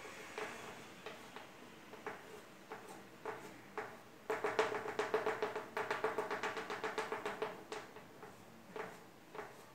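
Chalk strokes on a small blackboard: scattered taps and scrapes, then from about four seconds in a rapid run of short strokes, about five a second, lasting some three seconds as a drawing is shaded in.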